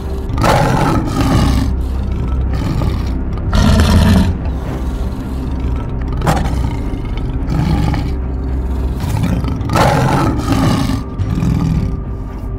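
Several loud, growling, lion-like roars laid over steady background music with held tones.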